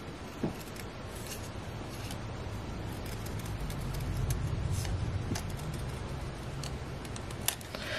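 Small scissors cutting around a piece of cardstock in short snips, heard as scattered sharp clicks roughly once a second, over a low steady rumble.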